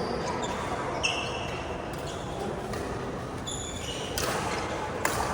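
Badminton play: shoes squeaking briefly on the court floor about a second in and again mid-way, then two sharp racket hits on the shuttlecock near the end.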